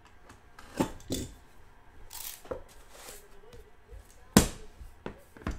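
A hard-shell trading-card box being slit open with a box cutter and its lid lifted off: a series of sharp knocks and clatters with a brief scraping slide about two seconds in. The loudest knock comes about four and a half seconds in.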